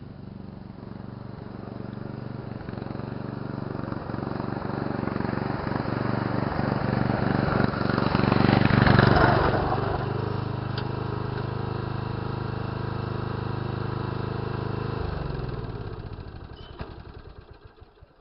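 Yard Pro LT 12.5 riding lawn mower's 12.5-horsepower engine running as the mower is driven around, growing louder to a peak about nine seconds in as it comes close. About fifteen seconds in the engine is shut off and winds down to a stop.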